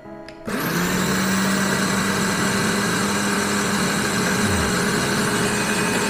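Bodum Bistro electric conical burr coffee grinder running empty on its timer. The motor starts about half a second in, spins up quickly and then runs with a steady whine, a bit noisy.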